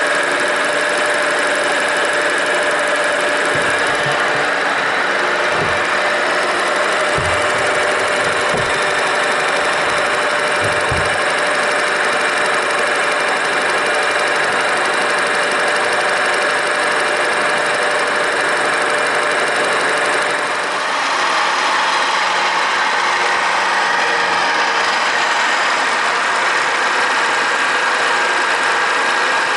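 Milling machine cutting steel on a slow pass: a steady, loud cutting noise with a constant whine. A few low thuds come between about four and eleven seconds in, and the sound briefly dips and changes about two-thirds of the way through.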